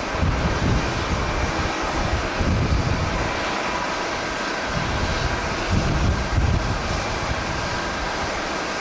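Steady jet airliner engine noise with strong wind buffeting the microphone in irregular low gusts, heaviest about halfway through and again around two-thirds of the way in.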